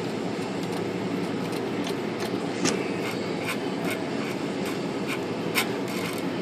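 Steady background hum with scattered light clicks, two sharper ones a little under halfway and near the end, as a flashlight tube is levered against a typewriter's bent steel platen shaft without bending it.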